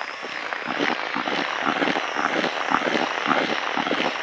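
Cordless drill spinning a metal groundbait whisk through dry groundbait in a plastic bucket: a steady motor whine over the gritty rustle and scrape of the dry crumb mix being stirred.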